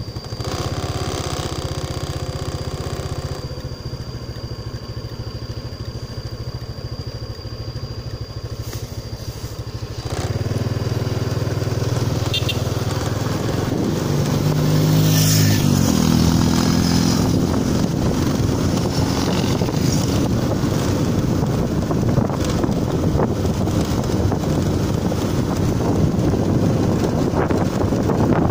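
Engine of a road vehicle running on the move, with wind noise on the microphone. The engine gets louder about ten seconds in, and its pitch rises and steps a few seconds later as the revs change. A steady high tone is heard through the first half.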